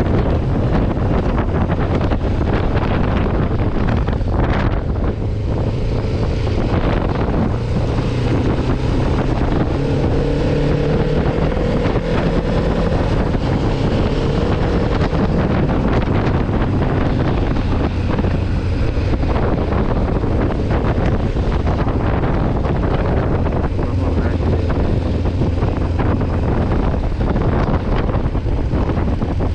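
Kawasaki Ninja 500R's parallel-twin engine running as the motorcycle rides along, under heavy wind noise on the microphone. The engine pitch rises gently about a third of the way in.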